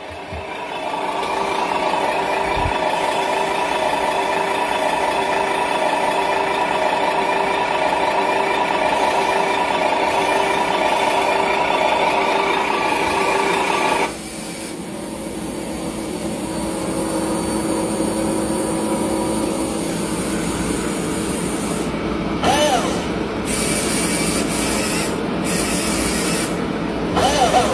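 Steady whirring of a radio-controlled model's small electric motor and gears running. About halfway through it cuts suddenly to a quieter, different whir.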